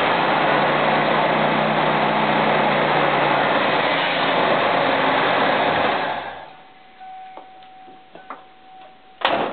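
1986 Mercury station wagon engine idling just after being started with fresh oil, then shut off about six seconds in. A single loud knock near the end.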